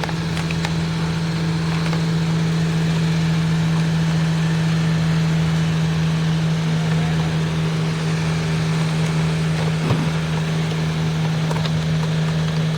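Septic pump truck's vacuum pump and engine running steadily, a constant low hum, while it sucks debris out of a clogged drain line. A brief knock sounds about ten seconds in.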